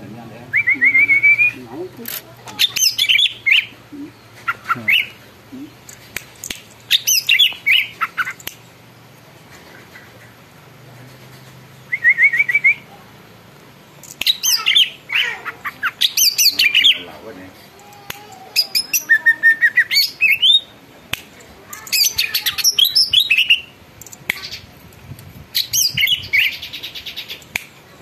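Male green leafbird (cucak ijo) singing loudly in bursts of fast, varied whistled phrases and trills, with short pauses between them, including quick series of repeated rising notes.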